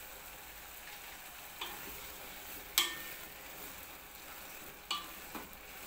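Wooden spoon stirring fried omena (small silver cyprinid fish) and tomatoes in a speckled stone-coated pot over heat: a steady sizzle with several sharp knocks of the spoon against the pot, the loudest about three seconds in.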